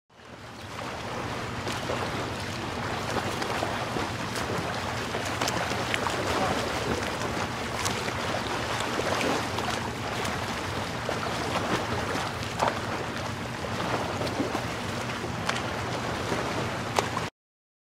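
Wind buffeting the microphone and water washing against a kayak hull, with scattered small knocks and splashes.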